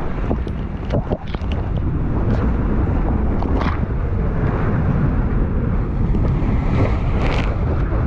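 Surf rushing and rumbling around a surfer riding inside a breaking wave's barrel, heard through heavy wind buffeting on a GoPro's microphone, with spray spattering against the camera now and then.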